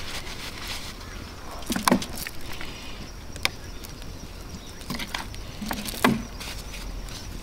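Handling noise of a 2-litre plastic water bottle and paper towel: crinkles and light taps, the loudest cluster about two seconds in, then water poured onto the towel. About six seconds in, the bottle is set down on the metal mesh table with a sharp knock.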